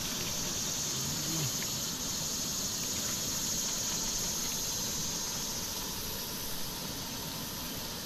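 Insects buzzing in a high, steady drone that swells about two seconds in and fades toward the end.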